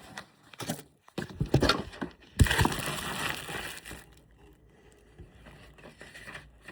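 Paper rustling and crinkling as a folded note is opened and handled: a few short rustles, then a longer, louder one starting about two and a half seconds in, fading to faint handling noise.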